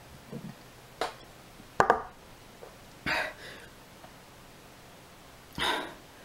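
A person's mouth and breath sounds after drinking a shot from a small bottle: two sharp clicks in the first two seconds, the second one doubled and the loudest, then two short, breathy exhalations about three and five and a half seconds in.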